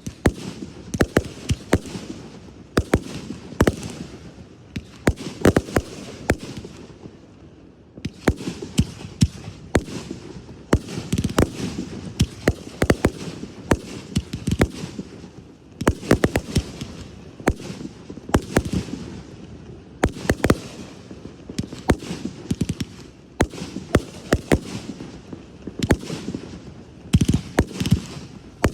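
Aerial fireworks display: many sharp bangs in quick succession as shells are fired and burst, easing for a moment about seven seconds in before picking up again.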